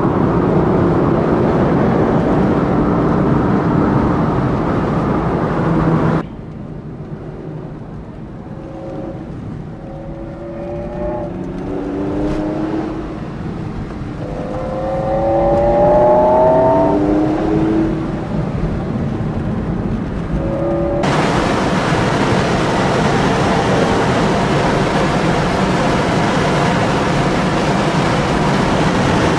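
Porsche Carrera 4S flat-six engine and road noise heard from inside the cabin while driving at speed. In the middle stretch, the engine note rises in pitch several times in a row, dropping back between rises, as the car accelerates up through the gears.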